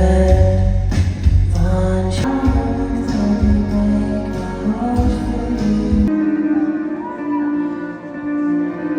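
Music with singing and guitar over a heavy bass. About six seconds in it cuts abruptly to a lighter, sustained guitar passage without the bass.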